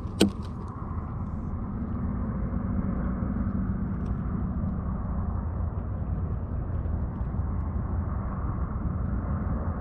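A sharp click, then a steady engine drone that builds over the first few seconds and holds.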